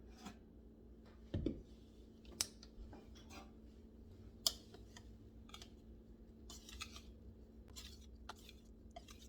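Scattered clicks, taps and light scraping of baking utensils and bowls on a kitchen counter, with a duller knock about a second and a half in.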